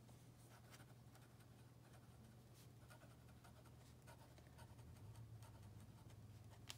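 Faint, irregular scratching of a pen nib on notebook paper as words are handwritten, over a low steady hum. A short sharp click comes near the end.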